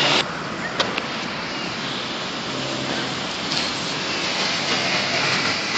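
Steady road traffic noise from vehicles on a road, an even hiss with no horn sounding, and a sharp click about a second in.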